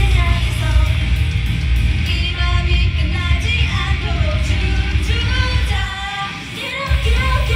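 Live performance of an up-tempo idol pop-rock song at high volume, with singing over heavy bass and guitar. The bass drops out briefly about six seconds in, then comes back.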